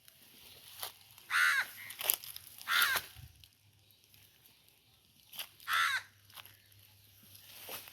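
A crow cawing: three loud, harsh caws spaced a few seconds apart, with a couple of shorter, fainter calls between them.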